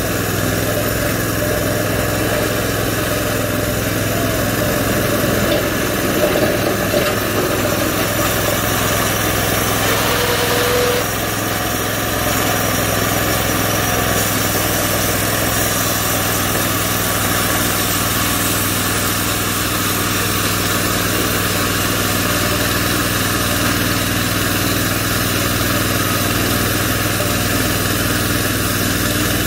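Small gasoline engine on a homemade bandsaw mill running steadily, driving the band blade as the sawhead travels along a log. The engine note drops a little about eleven seconds in.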